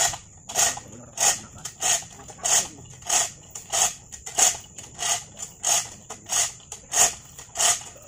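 Hand-operated cable come-along (kotrek) being pumped under load: a regular ratcheting clack about every two-thirds of a second as the lever works the taut cable. A thin steady high tone runs underneath.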